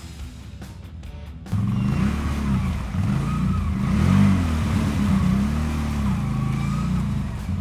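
Loncin X-Wolf 1000 ATV engine revving up and down repeatedly. It gets much louder about a second and a half in.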